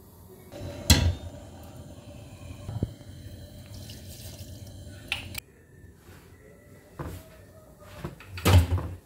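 Kitchen handling sounds: several sharp knocks and clatters of pots, utensils and a wooden cutting board, the loudest near the end, over a faint watery background.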